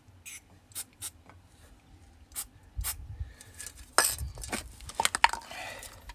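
Several short hissing bursts of copper grease aerosol spray onto brake pads. About four seconds in come sharp metallic clinks and rattles of brake parts being handled, with brief ringing.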